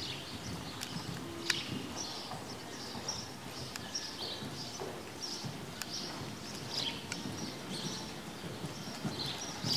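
Horse's hooves striking soft sand arena footing in a steady trotting rhythm, dull thuds rather than sharp clops, with light chirping sounds above them.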